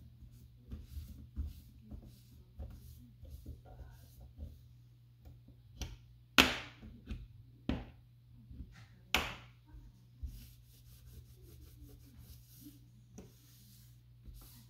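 Cloth rubbing and scuffing over a stove's stainless control panel while the metal knobs are handled, with two sharp clacks about six and nine seconds in. A steady low hum runs underneath.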